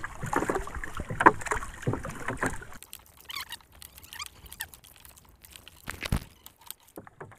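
Nylon gill net and its plastic floats rustling and clicking as they are paid out over the side of a wooden boat. The clicks come thick for about the first three seconds, then thin out, with one dull thump about six seconds in.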